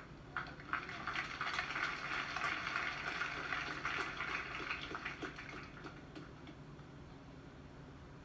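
A crowd clapping: dense applause that starts about half a second in, is at its fullest for a few seconds, and dies away about six seconds in.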